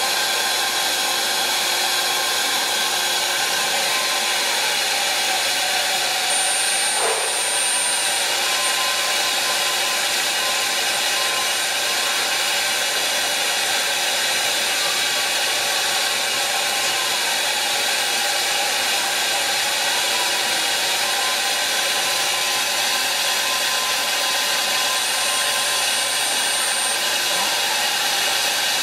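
Multi-spindle CNC router running, its high-speed spindles whining over a steady hiss of cutting as they drill and mill a dark sheet. The whine's pitch drops and comes back up several times, and there is one short knock.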